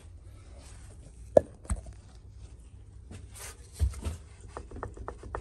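BMW TRW steering rack knocking as it is rocked back and forth: a few separate knocks, then a fast, even clatter of clicks about six a second. The knock comes from play in the rack's outer shaft bushings.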